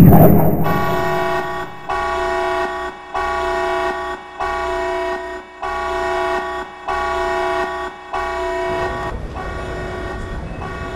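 A loud burst, then a horn-like tone sounding in about seven blasts of roughly a second each with short gaps between, followed by a low rumble.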